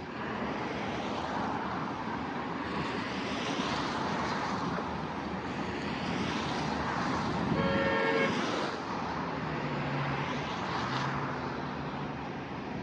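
Road traffic passing in swells, with a vehicle horn sounding once, briefly, about eight seconds in.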